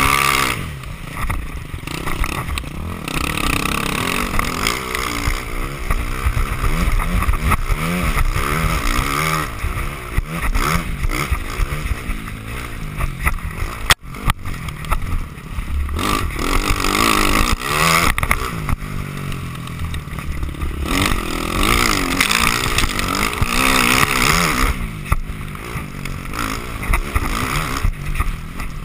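Dirt bike engine revving up and down again and again as it is ridden along a trail. The sound cuts out for an instant about halfway through.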